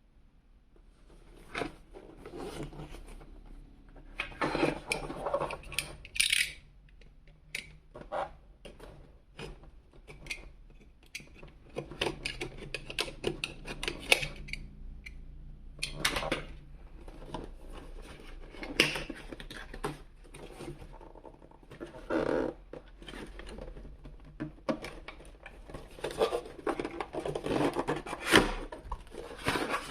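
Hands handling and opening toy packaging: cardboard and plastic rustling and scraping in irregular stretches, with scattered sharp clicks and taps.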